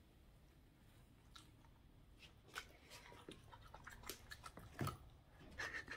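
Boston terrier chewing a piece of chicken: faint, irregular wet clicks and smacks of its mouth, a few louder ones in the second half.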